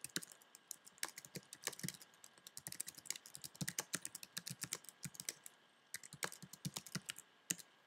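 Typing on a computer keyboard: a fast run of light key clicks with a few short pauses, as a line of text is typed out.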